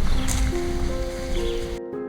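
Background music of sustained, gently stepping piano-like notes laid over rumbling outdoor trail noise; the outdoor sound cuts off abruptly near the end, leaving only the music.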